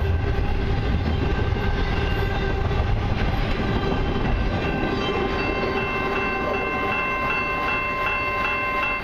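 Rumble and clatter of a freight train's last double-stack container well cars rolling past, fading about four seconds in as the end of the train clears. After that a steady high ringing with regular strikes, two or three a second, carries on from a level-crossing bell.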